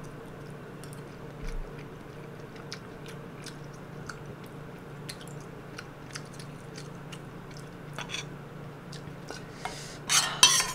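Metal spoon clicking against a bowl and quiet chewing, with a steady low hum underneath; a louder, brief scraping clatter comes near the end.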